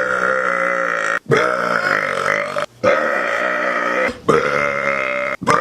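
Loud, long human burps, four in a row, each lasting over a second. They start and stop abruptly, with only short breaks between them, and a fifth begins near the end.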